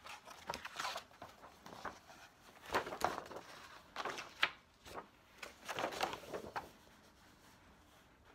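Pages of a hardcover picture book being turned and a large spread opened out by hand: paper rustling and flapping in a series of short, irregular bursts.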